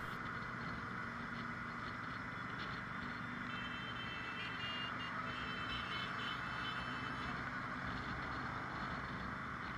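A mass of motorcycles running at crawling pace, heard faintly as a steady drone. About four to six seconds in, a few high beeping tones sound over it.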